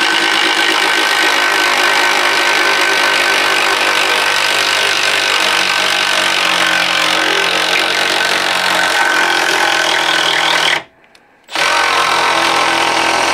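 Milwaukee M12 Fuel Surge hydraulic impact driver driving a half-inch twist bit into pressure-treated wood. It runs steadily without cutting out for about eleven seconds, stops for about a second, then runs again.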